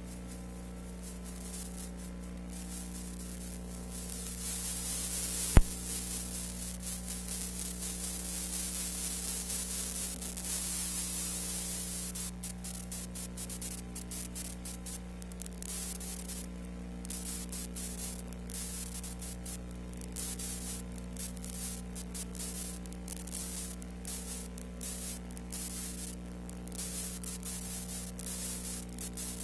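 Steady hiss and electrical hum with light crackle, and one sharp click about five and a half seconds in: the noise of the transfer itself, with no recorded soundtrack.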